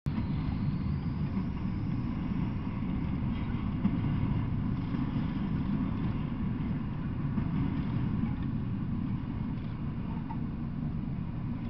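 Freight train of autorack cars rolling past, a steady low rumble of steel wheels on the rails.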